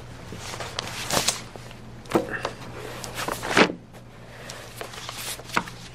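Pages of a large book being leafed through, paper rustling in several short sweeps over a steady low hum.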